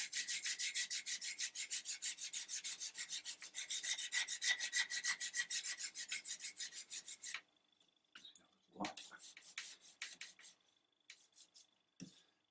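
Abrasive Scotch pad scrubbing the wooden stock of a Mossberg .22 rifle, fast back-and-forth strokes at about five a second, rubbing off varnish softened by chemical stripper. The scrubbing stops about seven seconds in, then comes a thump, a few more short strokes, and a brief knock near the end.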